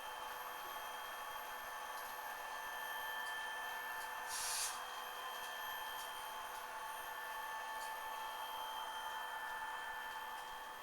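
An ESU LokSound decoder's EMD diesel prime-mover sound, played through a tiny sugar-cube speaker in an N-scale SD40-2 model: a steady, thin drone with no bass. A short hiss of air comes about four and a half seconds in.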